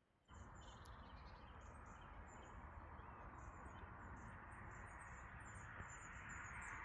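Faint outdoor ambience: small birds chirping in short, high, repeated notes over a steady background hiss.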